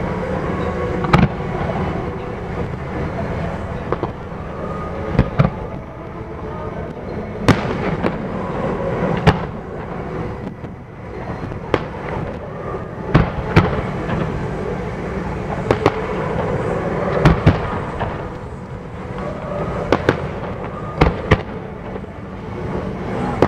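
Aerial fireworks shells bursting: about eighteen sharp bangs at uneven intervals, some in quick pairs, over steady background noise.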